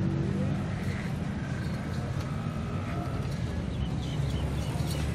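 A steady low engine hum runs throughout, under faint street background noise.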